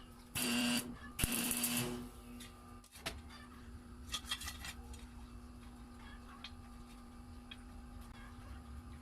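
Two short bursts of a small motor or power tool, the first about half a second long and the second nearly a second, over a faint steady hum, followed a few seconds later by a few light clicks.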